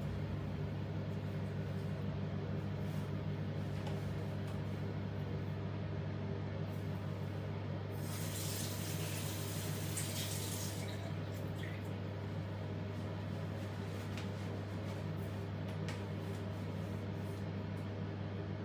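Bathroom sink tap running into the basin for about three seconds near the middle, over a steady low hum.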